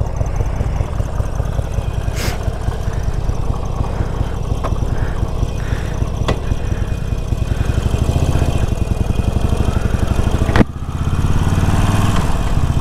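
Harley-Davidson Forty-Eight's air-cooled 1200 cc V-twin on its stock exhaust, idling with a steady lope. A sharp clunk about ten seconds in, then the engine revs up as the bike pulls away.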